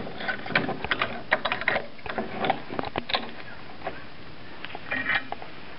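Small metal clamp being slid along and screwed tight to hold a thin wood strip on a cast metal mitre saw bed: a run of irregular small metallic clicks and knocks, thinning out after about three seconds, with a brief squeak about five seconds in.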